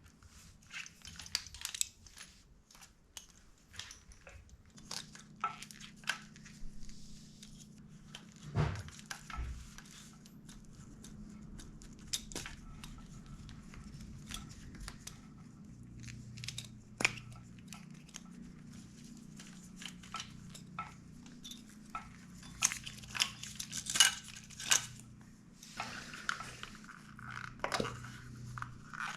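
Hand tools and metal parts clinking, knocking and rattling as a Honda CRF150R dirt bike is taken apart, in scattered irregular strikes with a loud cluster about three quarters of the way through.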